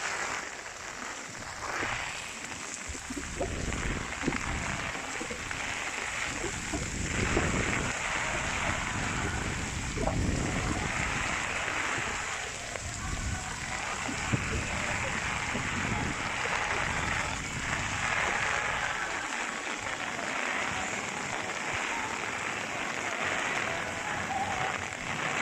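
Typhoon rain falling steadily, with wind gusting against the microphone in swells that rise and fall.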